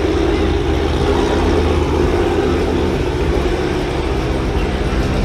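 Chevrolet C3 Corvette's V8 engine running steadily as the car crawls past close by at walking pace.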